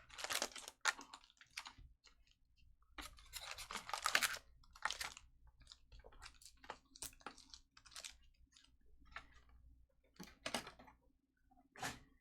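Trading-card packs being opened and cards handled: irregular crinkling and crackling of foil pack wrappers with light clicks and taps of cards, in short bunches with brief pauses between.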